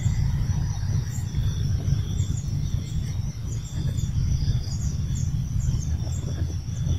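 Wind rumbling on the microphone, the loudest sound, with small high chirps recurring every half second or so and a faint steady high hum behind it.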